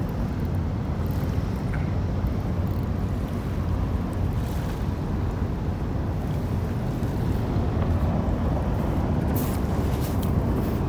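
Low, steady rumble of a large ferry's engines as it passes close by.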